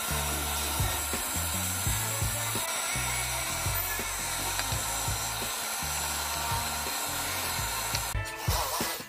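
Drill press motor running steadily while its bit bores into plywood, under background music with a stepping bass line. The sound drops away near the end.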